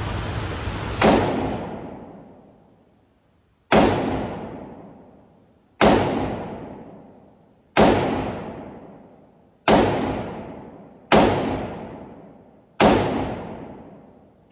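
Seven single gunshots fired slowly, about two seconds apart, each trailing off in a long echo. A steady hiss stops at the first shot.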